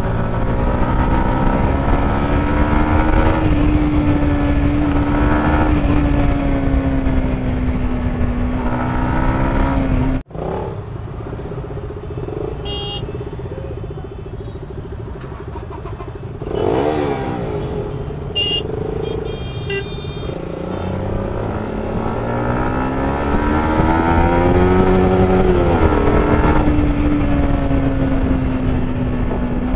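Yamaha MT-15's 155 cc single-cylinder engine pulling hard, its pitch climbing and falling with the throttle. About ten seconds in the sound cuts to a quieter stretch among other motorcycles with a steady drone and a few short horn toots, before the engine climbs again.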